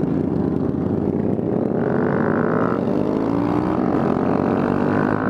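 Honda Grom's 125 cc single-cylinder four-stroke engine running with its muffler gone, exhaust straight out of the open header. The pitch dips briefly about four seconds in.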